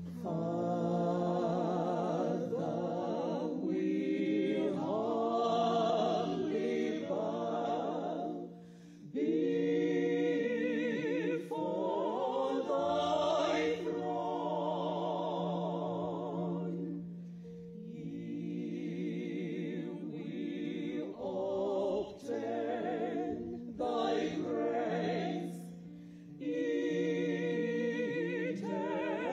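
Large church choir singing a hymn over a held keyboard accompaniment, breaking briefly between phrases three times.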